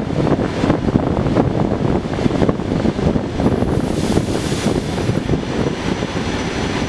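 Suburban electric train running on the rails, heard from a window inside the car: a dense, steady rumble and rattle of the wheels, with wind buffeting the microphone, as the train pulls in along a station platform. A high hiss joins in about four seconds in.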